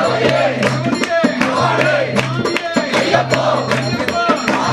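Devotional group singing with rhythmic percussion, sharp strikes coming several times a second.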